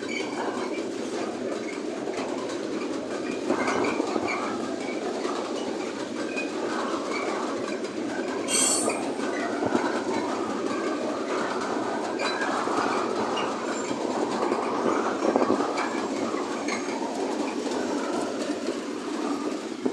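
A loaded freight train's flat wagons rolling past with a steady rumble and clatter of wheels over the rails, with a brief high-pitched screech about eight and a half seconds in. The ČD Cargo diesel locomotive hauling them draws level near the end.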